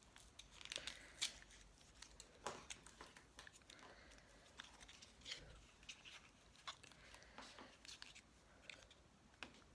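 Faint handling of a liquid lipstick and its packaging: light rustling with scattered small clicks and taps as it is worked at to get it out.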